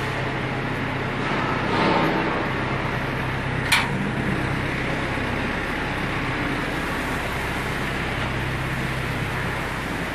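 Steady mechanical background noise with a low hum, as of machinery or ventilation, broken by one sharp knock just under four seconds in.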